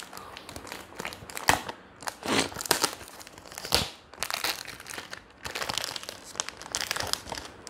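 Cellophane wrapping being picked at and torn off a perfume box, crinkling and crackling in irregular bursts, the loudest about one and a half, two and a half and nearly four seconds in.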